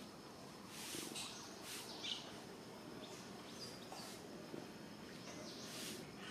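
Faint outdoor ambience with birds calling now and then: short, high, hissy chirps every second or two.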